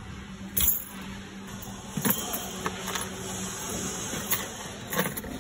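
Knocks, clicks and rustling of a bag and a bunch of keys being handled and set down on a car seat, over a low steady hum that fades out a little past halfway.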